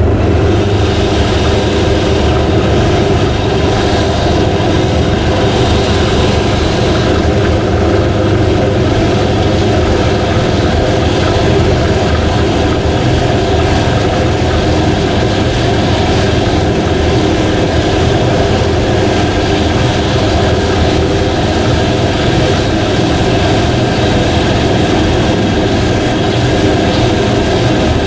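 Cheap electric drill running steadily, driving a bicycle chain round a homemade chain cleaner so that the chain runs rattling over its roller and metal brush. A bit noisy, with the drill's hum under the chain's clatter.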